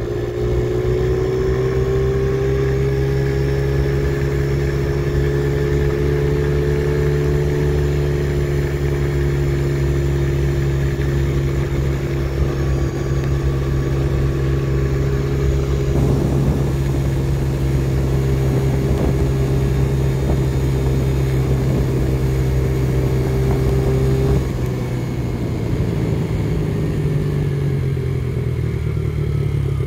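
2008 Yamaha TT-R50E's small four-stroke single-cylinder engine running at a steady pitch while the bike is ridden. About three-quarters of the way through, the engine note drops off as the throttle is eased, then carries on at lower revs.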